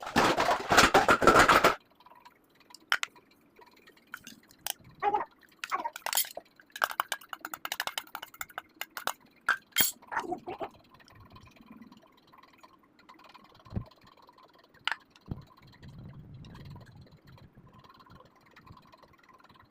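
Kitchen preparation sounds: a loud noisy rush for the first couple of seconds, then scattered clinks and small knocks of utensils against glass and metal, with liquid being poured.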